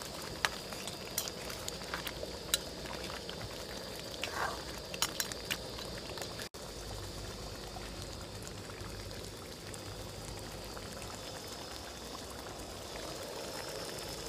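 Thick crab curry simmering in a metal pan over a fire: a steady bubbling hiss, with scattered light clicks through the first half. The sound breaks off for an instant about six and a half seconds in, then carries on more evenly.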